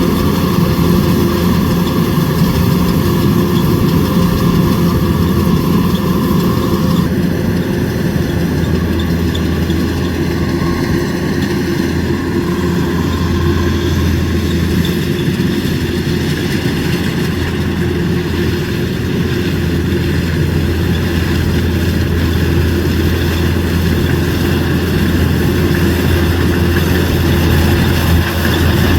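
Kubota DC105X combine harvester's diesel engine and machinery running steadily, a constant low hum with a few steady tones above it. About seven seconds in, the higher part of the sound changes abruptly, then runs on steadily.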